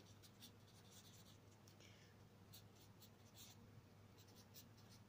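Faint scratching of a pen writing on notebook paper in short irregular strokes, over a steady low hum.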